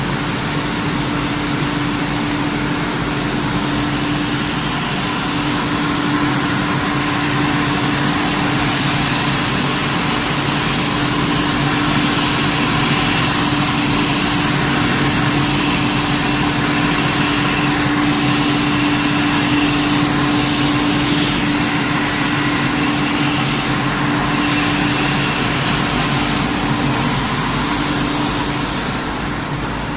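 Tire pyrolysis plant machinery running: a loud, steady industrial drone with one constant hum-like tone under a broad rushing hiss, swelling a little louder in the middle.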